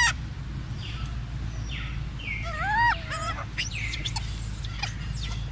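Macaque coo calls: a few high, arched whistle-like calls, the clearest pair a little over two and a half seconds in, over a steady low rumble and some brief rustles.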